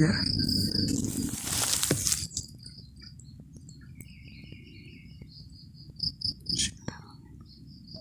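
Insects chirping in a steady high, pulsing trill. A loud rustling hiss fills the first two seconds, and a few short knocks come about six seconds in.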